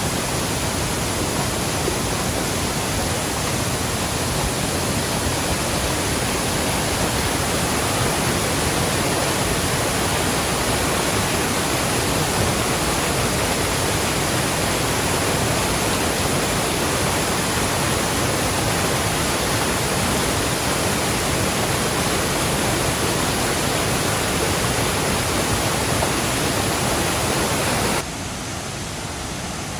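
Waterfall rushing steadily. The noise drops suddenly to a lower level near the end.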